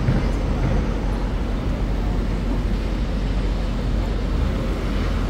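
City street traffic: a steady low rumble of vehicles.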